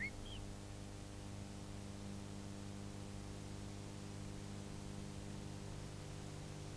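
Steady low mains hum with faint hiss: the noise floor of an old film soundtrack, with no other sound. The last whistled note of a song cuts off right at the start.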